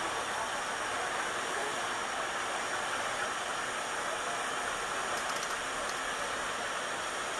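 A steady, even rush of noise with no distinct events.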